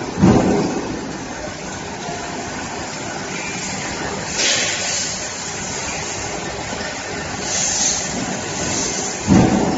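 CH-320HA automatic band saw machine running with a steady mechanical noise. A heavy thump comes just after the start and again near the end, with short hissing bursts about halfway through and again later.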